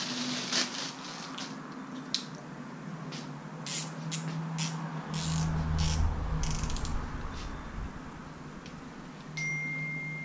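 A new spinning reel is unwrapped from a crinkling plastic bag with scattered clicks. Its handle is then cranked, and the gears and rotor turn with a steady whirr, loudest about halfway through. The reel runs freely and smoothly. A thin, high steady tone comes in near the end.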